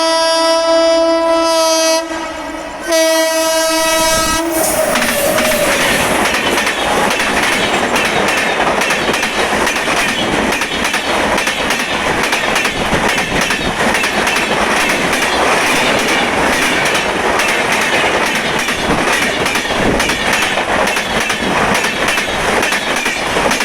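Twin-tone horn of a WAP-7 electric locomotive sounding in two blasts, the second cutting off about four and a half seconds in. Then the express train passes close by, its wheels clattering rhythmically over the rail joints.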